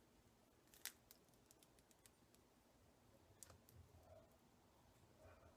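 Near silence: room tone with a few faint clicks, the sharpest about a second in and another near three and a half seconds.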